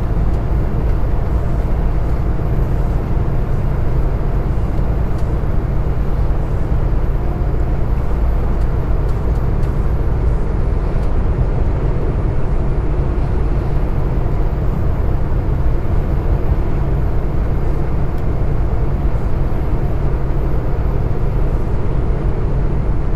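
Kenworth semi truck running at highway speed, heard from inside the cab: a steady low drone of engine and road noise.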